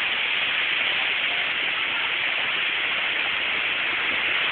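Steady rushing hiss of high wind, even and unbroken.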